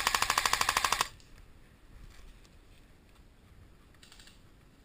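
Airsoft M16 replica firing a full-auto burst, an even rattle of about fifteen shots a second that stops about a second in.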